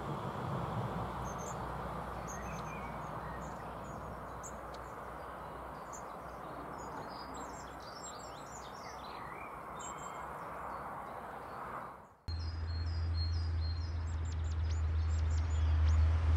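Small birds calling with many short, high, thin chirps over a steady outdoor background hiss. About twelve seconds in the sound cuts suddenly to a louder, low steady rumble, with more high chirps and falling notes over it.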